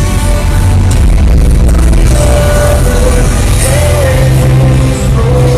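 Loud music with a heavy, steady bass and a held melody line that slides and bends in pitch.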